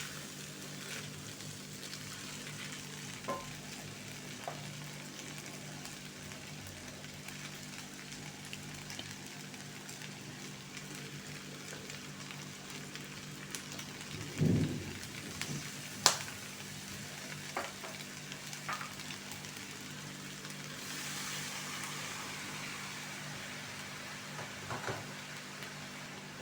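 Food sizzling in hot oil in a pan while being stirred, with scattered clicks of a utensil against the pan, a dull thump about halfway through and a sharp clack just after it.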